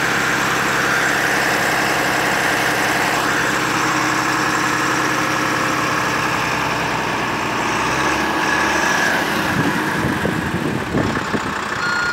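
Volvo FMX 440 truck's 13-litre six-cylinder diesel idling, steady for most of the time and turning more uneven in the last few seconds.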